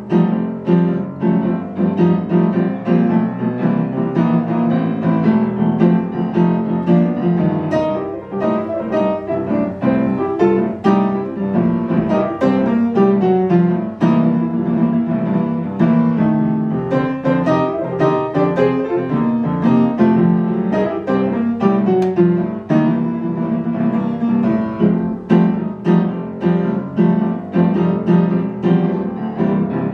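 Upright acoustic piano played solo in a jazz style: a continuous stream of struck chords and quick melody notes over a full bass.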